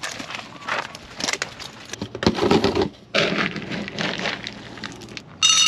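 A plastic scoop digging into a bin of dry dog kibble, the pellets rattling and crunching in irregular clicks. Near the end a loud, high ringing sound starts.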